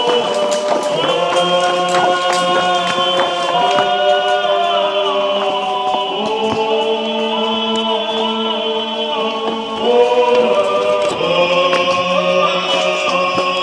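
Background music of held, choir-like vocal chords that shift every second or two, with faint ticks over it.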